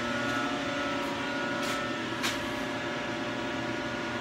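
Steady electrical machinery hum from a rotary-phase-converter-fed three-phase setup, with two faint clicks about two seconds in.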